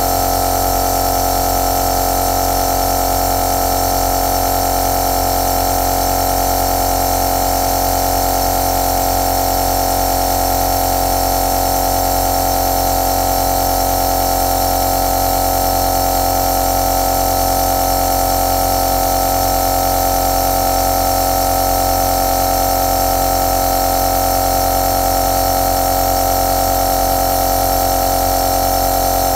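Compressor nebulizer running steadily, a constant motor hum with an even hiss of air.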